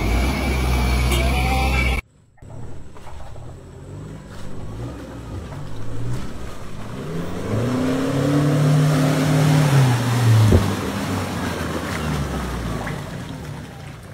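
Toyota Hilux pickup's engine revving as it climbs a muddy track: the revs rise over a few seconds, hold, then fall away about ten seconds in, with a single sharp knock as they drop. Before that, a loud steady rumble cuts off abruptly about two seconds in.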